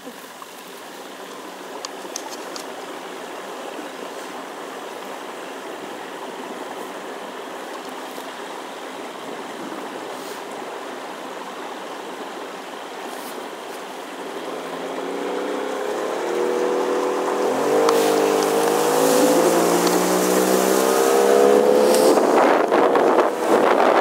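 Motorboat engine running slowly under a steady rush of water, then speeding up from about fifteen seconds in, its pitch rising and growing louder as the boat gets going.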